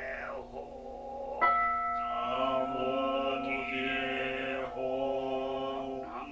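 Group of voices chanting a Soto Zen sutra on one steady pitch. A bell is struck once about a second and a half in and rings on under the chanting.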